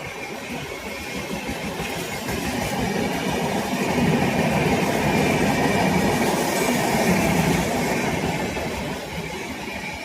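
A train running past on the track, the rumble of wheels on rails growing louder about four seconds in and easing off near the end.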